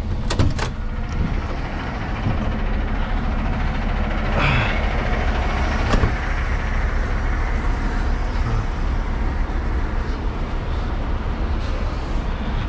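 Semi-truck's diesel engine idling steadily, with a few sharp clicks about half a second in and one about six seconds in, and a brief scraping burst around four and a half seconds.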